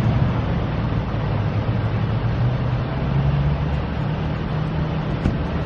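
Steady outdoor traffic and vehicle noise, a continuous rumble with a low engine-like hum.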